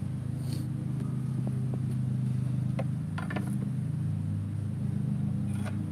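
A steady low mechanical hum from a running machine, with a few light clicks and taps in the middle and near the end.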